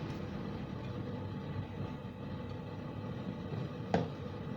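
Steady low background rumble with one sharp click near the end.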